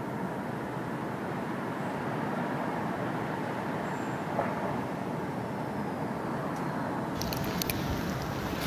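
Steady outdoor background noise with no distinct source. About seven seconds in it changes to wind buffeting the microphone, with a few sharp clicks.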